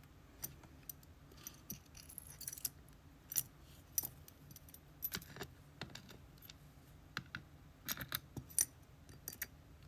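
Small metal lock parts, the pins and wafers of a disassembled GeGe pExtra+ cylinder, clicking and clinking as they are handled and rearranged: scattered light clicks, a few sharper ones.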